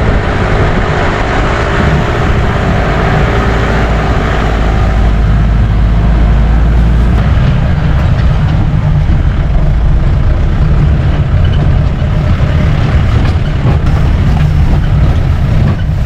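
Jeep engine running with a loud, steady low drone; a higher engine tone in it fades out about five seconds in.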